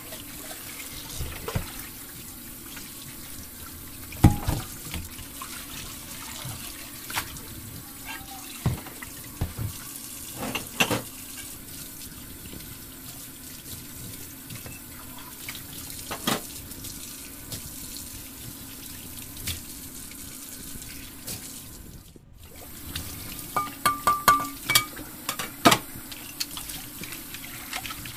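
Light clicks and taps of plastic toy kitchen pieces being handled and set down, over a steady hiss. A quick cluster of clicks comes near the end as a toy spatula is hung on the play kitchen's hook.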